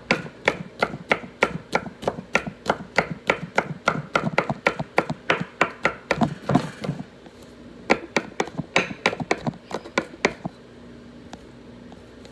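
Knife chopping garlic on a wooden cutting board: quick, even strokes, about four a second. They pause briefly about six and a half seconds in, resume, and stop about ten and a half seconds in.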